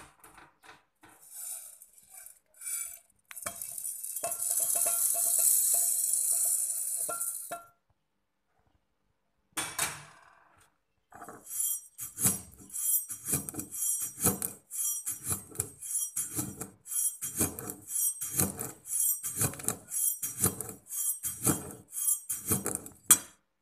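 Toasted mung beans poured into a brass mortar, rattling steadily with a metallic ring for a few seconds, then a brass pestle pounding the beans to crush them, a regular run of clinking strikes about three every two seconds through the second half.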